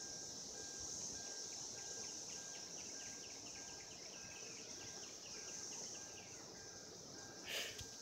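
Chorus of periodical cicadas: a steady high-pitched drone. A rapid run of faint chirps comes through the middle, and a brief loud rustle near the end.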